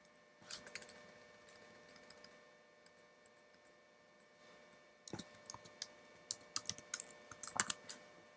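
Typing on a computer keyboard: a short flurry of keystrokes about half a second in, a few scattered taps, then a rapid run of keystrokes over the last three seconds as a terminal command is edited.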